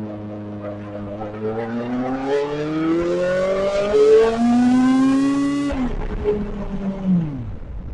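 Kawasaki ZX-25R's inline-four engine accelerating with a wasp-like buzz. Its pitch rises steadily, steps down once about four seconds in as at an upshift, and climbs again. Just before six seconds in the throttle is closed, and near the end the revs fall away.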